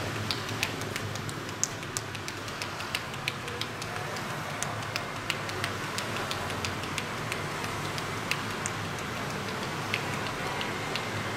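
Hands working over bare skin in a back massage, giving short, light clicks and pats at an uneven pace of about two or three a second. Under them runs a steady hiss of street background noise.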